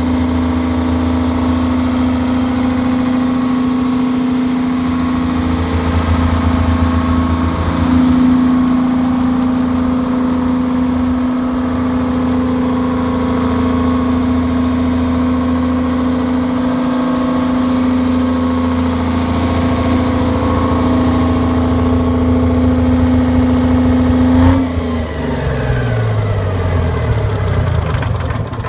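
Detroit Diesel engine of a 200 kW standby generator running at a steady speed. About 24 seconds in it is shut off with a click and winds down, its pitch falling.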